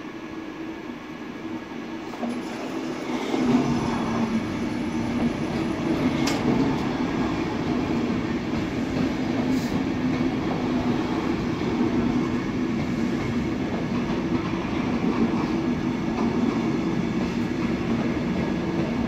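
Loco-hauled alex passenger train rolling slowly past a station platform, its wheels running over the rails with some clickety-clack. It grows louder over the first few seconds as it nears, then holds steady with a low hum, and a couple of sharp clicks sound about six and ten seconds in.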